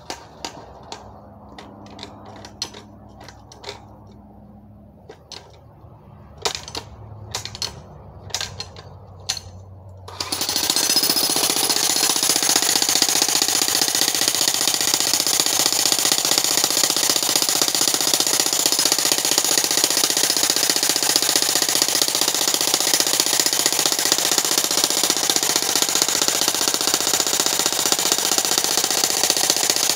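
Electric jackhammer breaking rock. The first third holds only scattered knocks and taps; then the hammer starts up and pounds steadily and loudly for the rest.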